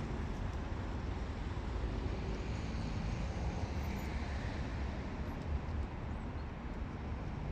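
Steady low rumble of urban outdoor background noise, with a fainter hiss above it and no distinct events.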